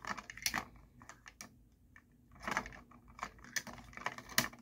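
Light, irregular plastic clicks and rattles from a Madagascar 3 Gia trapeze toy as its side wheel is turned by hand and the figure flips around the bar. The clicks stop for about a second in the middle.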